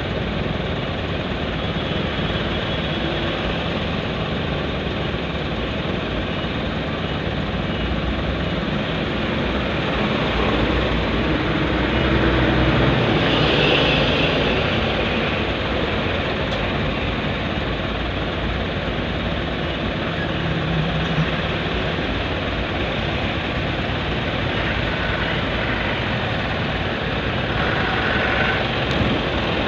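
Traffic jam noise heard from inside a car: engines idling and running steadily. The sound swells about halfway through as a large truck comes close alongside.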